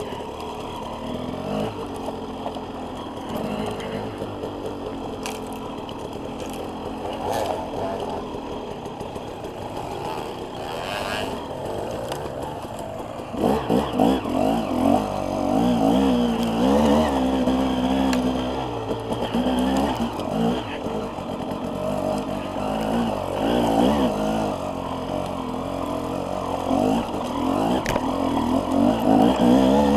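Enduro dirt bike engine running under way, its pitch rising and falling with the throttle. It gets louder, with harder revving, about halfway through.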